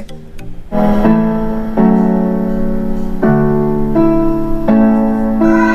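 Music with a slow piano-like keyboard melody played through a boAt Stone 1000 portable Bluetooth speaker as a sound test. Sustained notes change about once a second, starting just under a second in.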